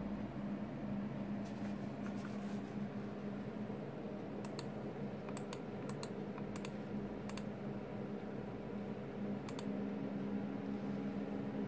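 Mouse button clicks from a wired optical gaming mouse, about ten sharp clicks, several in quick pairs, scattered through the middle of the stretch, over a steady low hum.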